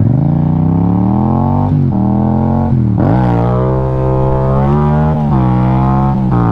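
Motorcycle engine accelerating hard from low speed: the pitch climbs, drops at upshifts about 1.7 s and 3 s in, then holds high in third gear with small dips in throttle.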